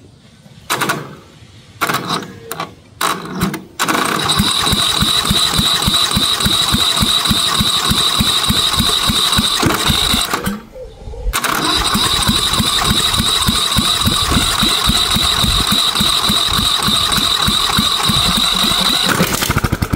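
Briggs & Stratton 19.5 hp Professional Series engine cranked by its electric starter from a battery on jumper cables: a few short bursts, then two long cranking runs with a rapid, even pulsing and a steady high starter whine, broken by a pause of about a second. The fuel shutoff has just been powered by a hot wire to let fuel through.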